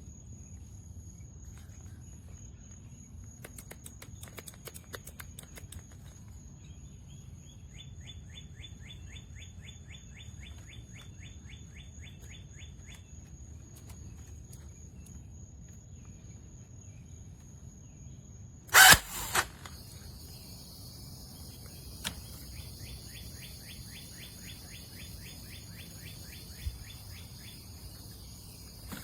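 Steady outdoor background noise with a bird's rapid trill, heard twice for about five seconds each. A loud sharp knock, followed by a smaller one, comes about two-thirds of the way in.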